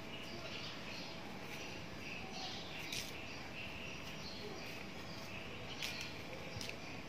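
Birds and insects chirping steadily in the background, with a couple of short sharp clicks, about three and six seconds in.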